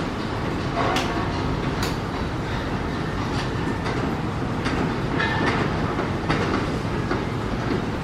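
Steady low mechanical rumble with scattered clicks and clatters, the sound of passing rail or road traffic.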